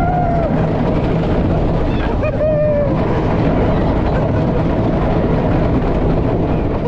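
Wooden roller coaster train running fast along its wooden track: a steady loud clatter with wind rush. A short high-pitched squeal comes about two seconds in.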